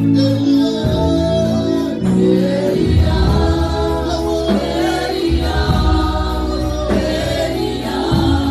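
Gospel worship music: a group of voices singing together over a band with a strong bass line.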